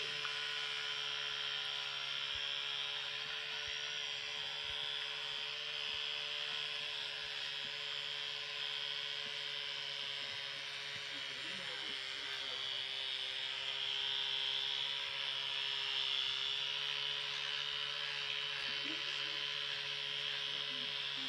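Electric toothbrush running with a steady hum as its head brushes a dog's teeth; the pitch dips slightly about midway.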